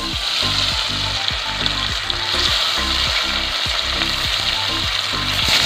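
Pieces of bata fish sizzling steadily as they fry in hot oil in a wide metal kadai, with a high, even spitting hiss.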